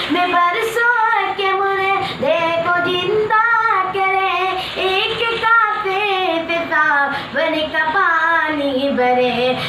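A boy singing an Urdu naat solo and unaccompanied, in a high voice with held notes that bend and waver.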